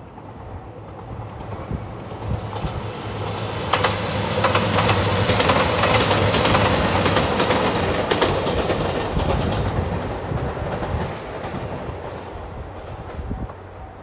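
Nanpu limited express diesel train passing: its engine drone grows louder, the wheels clatter over the rail joints for several seconds in the middle as it goes by, then the sound fades away.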